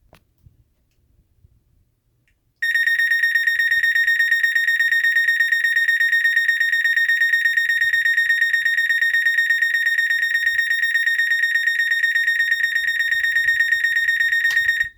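Federal Signal SLM800R electronic sounder sounding a steady, high-pitched alarm tone with a fast pulsing warble. It starts about two and a half seconds in and cuts off just before the end.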